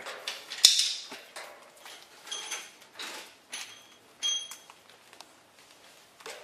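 Hands handling and untangling a scooter rack light kit and its cables. A sharp click comes near the start, followed by a series of short rattles and small metallic clinks, some with a faint ring.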